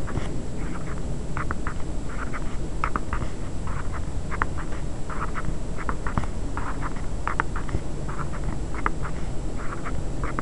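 Pen scratching on paper while digits are written, in short irregular strokes several times a second, over a steady low rumble.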